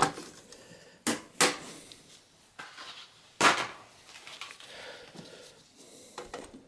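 Sharp plastic clicks and knocks of DDR3 memory sticks being handled and pressed into motherboard slots, the slot retention clips snapping shut as the modules seat. Several separate clicks with quiet handling between, the loudest about three and a half seconds in.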